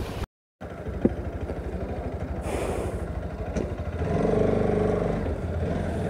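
Motorcycle engine running with steady, even firing pulses. It grows louder about four seconds in, then settles. The sound cuts out completely for a moment near the start.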